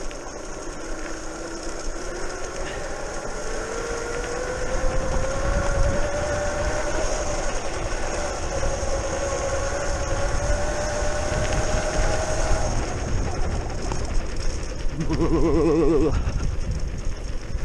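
Brushless outrunner motor of a modified electric scooter whining under power, the pitch rising as it speeds up over the first few seconds, then holding steady before dropping away about two-thirds of the way through, over a low rumble. About fifteen seconds in, a short wavering tone.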